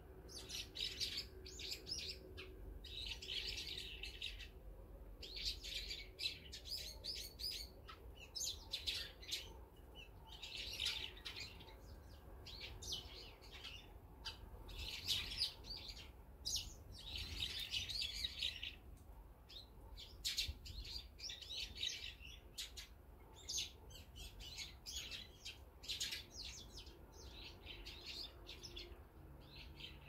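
Small songbirds chirping in quick clusters of short, high calls, coming in bursts with brief gaps between them.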